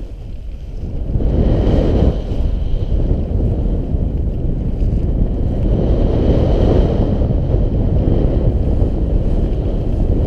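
Wind buffeting a GoPro's microphone as a paraglider pilot launches and gets airborne. The rumble swells about a second in and stays strong and gusty.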